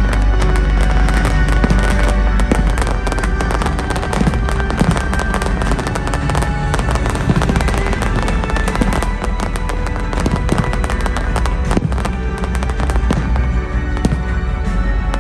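Fireworks crackling and popping in rapid, dense strings over loud music. The crackling thins out near the end.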